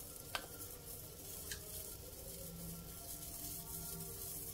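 Spicy seblak broth at a boil in a stainless steel wok, a faint steady bubbling hiss, with two light clicks, one about a third of a second in and one about a second and a half in.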